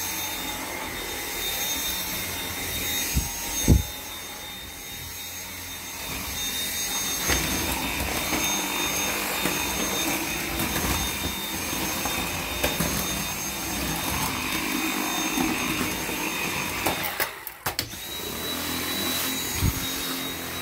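Dyson V7 Motorhead cordless stick vacuum running with a steady high motor whine while it is pushed over a mat. There is a knock a few seconds in, and about three quarters of the way through the sound briefly drops, with a few clicks, before it comes back.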